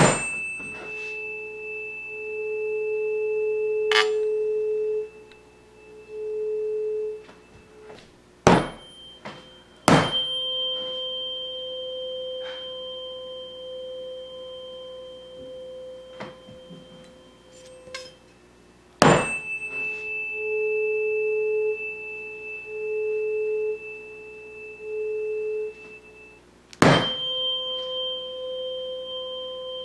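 Two tuning forks struck in turn, each left ringing over the mouth of a water-filled graduated cylinder. The 427 Hz fork's tone swells loud in repeated pulses as the 20 cm air column above the water resonates with it. The slightly higher-pitched fork rings steady and quieter, out of resonance with the tube.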